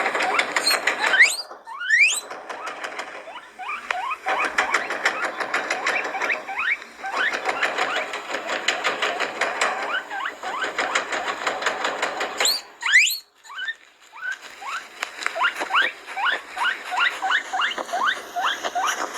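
Guinea pig squeaking in fast runs of short rising squeaks, with a few long rising whistles about a second in and again near thirteen seconds, where the squeaking briefly stops.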